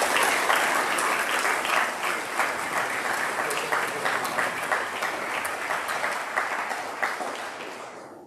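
A large audience applauding, a dense patter of many hands clapping that dies away near the end.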